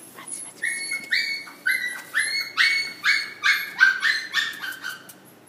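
Chocolate Labrador Retriever puppy yipping: a quick run of short, high-pitched yelps, two or three a second, that stops about a second before the end.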